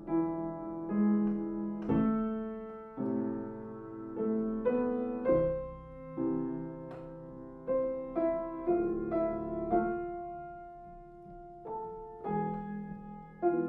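Upright piano played with both hands: an improvised piece of struck chords and melody notes that ring on and fade between strikes. It grows softer for a stretch about two-thirds of the way through, then picks up again near the end.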